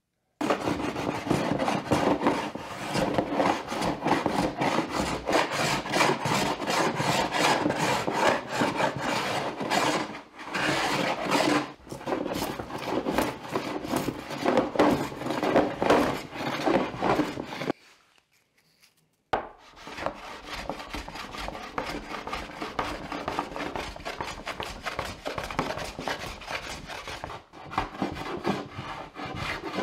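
Steel hand plane shaving a wooden table top flat, a quick run of rasping strokes of blade on wood. The planing stops for about a second and a half just past the middle, then carries on more quietly.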